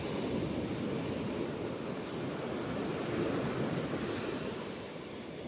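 Ocean surf washing onto a beach, with wind on the microphone: a steady rushing noise that eases near the end.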